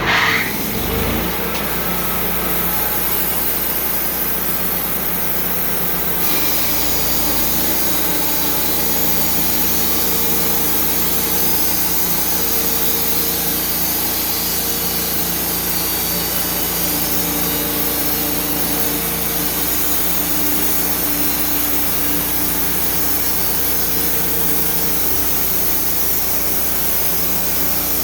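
Sawmill running and sawing lengthwise through a log, the engine and blade making a loud, steady noise. It comes up sharply at the start, and about six seconds in the sound changes and then holds steady.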